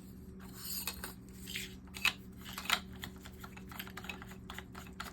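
Irregular light clicks, taps and rattles of a Bauer 20 V cordless string trimmer's plastic parts being handled, over a steady low hum.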